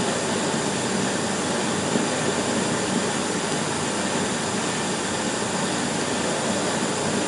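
Steady rushing noise on an old 16mm film soundtrack, even throughout, with no distinct events.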